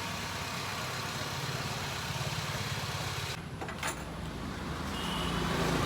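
Motor vehicle engine idling steadily.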